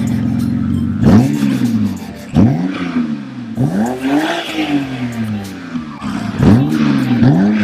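BMW E90's N52 straight-six, with an electric exhaust cutout fitted just ahead of the muffler, idling and then blipped five times, each rev rising and dropping back to idle; the third rev is held a little longer.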